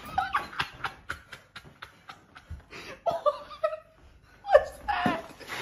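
A person laughing under their breath: a quick run of breathy snickers, about five a second, then a few short voiced laughs.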